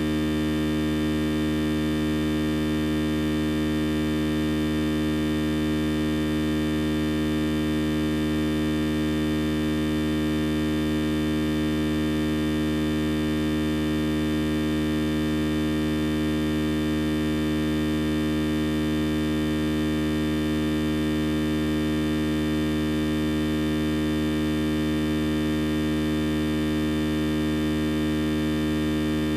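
Steady electrical hum with a buzz of many overtones, loud and completely unchanging, with no speech or other events in it.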